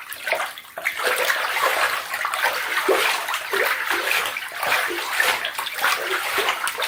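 A hand stirring and swishing water in a filled bathtub, a continuous churning with many small irregular splashes, starting about a second in.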